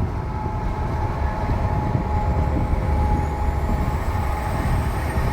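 Steady low rumble of a vehicle driving at road speed: road and engine noise, with a faint steady tone above it.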